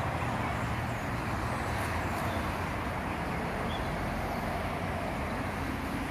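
Steady outdoor background noise: an even low rumble with hiss above it, unchanging throughout.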